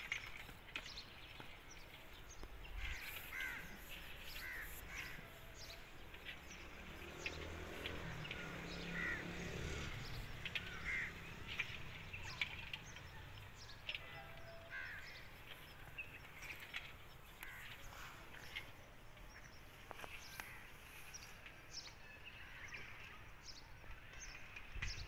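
Outdoor ambience of birds calling in short, scattered chirps and caws, with a low rumble that swells and fades around the middle.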